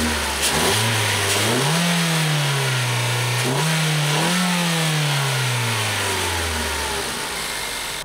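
Ford Focus 2.0-litre four-cylinder engine free-revving in neutral: the revs rise about two seconds in, ease off slightly, rise again around four seconds, then drop back toward idle near the end.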